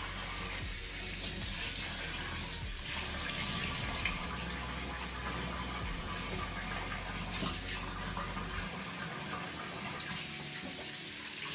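Kitchen tap running steadily into a steel sink while dishes are washed, with occasional clinks of steel utensils and one sharper clink near the end.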